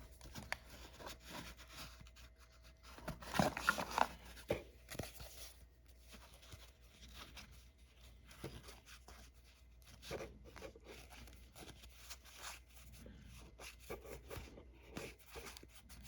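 Handling of trading card packs and cards: crinkling and tearing of a pack wrapper, loudest about three to four seconds in, then a run of soft rustles and light clicks as the cards are slid and flipped.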